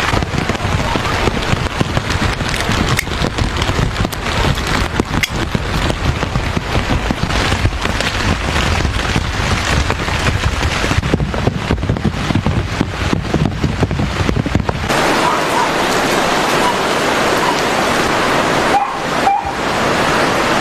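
Rain falling in a drizzle, a dense crackle of drops over a low rumble; about fifteen seconds in it changes abruptly to a smoother, even hiss.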